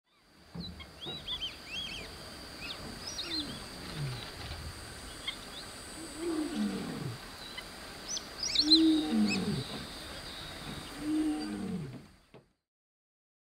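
Lion roaring: a series of long, moaning calls that fall in pitch, the loudest about nine seconds in. Birds chirp in the background.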